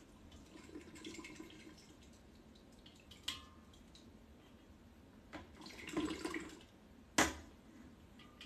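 Siphon racking cane and tubing being pulled out of the mead, with faint dripping and gurgling of liquid draining from the tube and a few small clicks. A sharp knock comes about seven seconds in.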